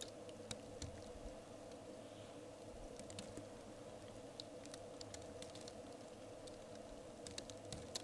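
Falling snow ticking faintly and irregularly as scattered light clicks, over the constant drone of a radon pump.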